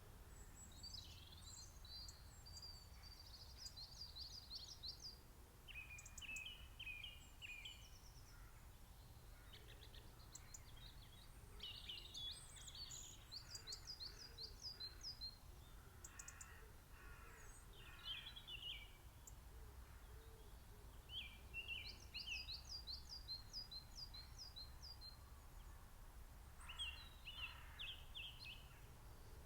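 Small songbirds singing: quick phrases of high, rapid notes, each a second or two long, come one after another every few seconds and overlap at times. A faint steady low rumble lies underneath.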